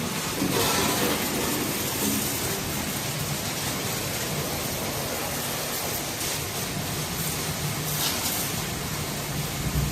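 Water spraying steadily onto a tractor during washing, an even hiss with a faint low hum underneath.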